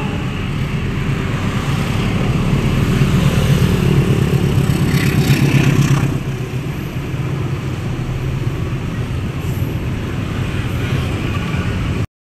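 Freight train passing below: a diesel locomotive's engine running, louder for a few seconds in the first half as it goes by, then the steady rumble of loaded coal hopper wagons rolling along the rails.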